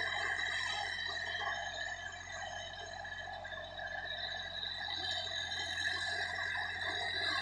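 Sonalika DI 50 RX tractor's diesel engine running steadily under load while it pulls a rotary tiller through the soil. The drone fades a little partway through, then grows louder near the end.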